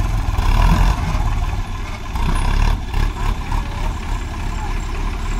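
Diesel tractor engine running, louder in the first second, then easing off with a brief rise about halfway through.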